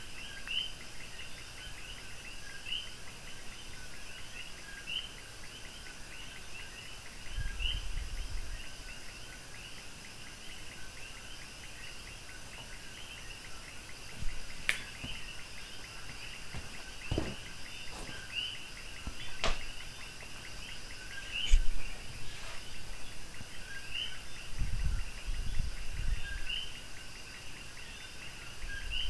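Steady high-pitched background chirring with a brighter chirp every second or two, the kind of sound insects or birds make outdoors. A few sharp clicks and low thumps come in past the middle, the loudest click about three-quarters of the way through.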